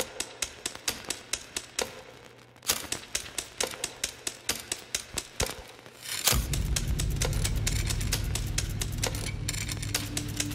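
Rapid, irregular clacking of typewriter keys. About six seconds in, a deep low drone of a music bed comes in beneath the clacks, with held musical tones building near the end.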